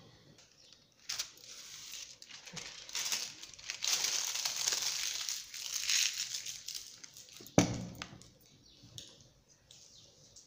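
Fabric rustling and crinkling as a sewn dress is handled and spread out flat, with one sharp thump about three quarters of the way through.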